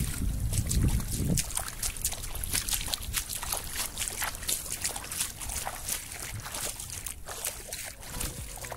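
Feet wading through ankle-deep shallow seawater: a steady run of small splashes, sloshes and drips. Wind buffets the microphone for about the first second and a half.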